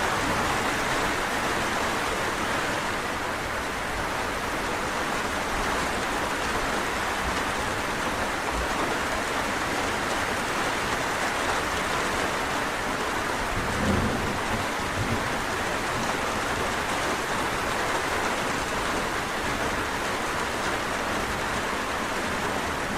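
Steady rain falling, an even dense hiss of drops on surfaces, with a brief low rumble a little past halfway through.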